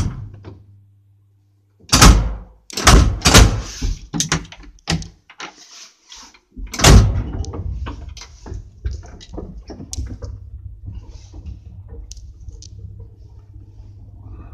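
Lift doors shutting and latching with a string of heavy thuds and knocks, then a steady low hum from about halfway on as the lift machinery runs.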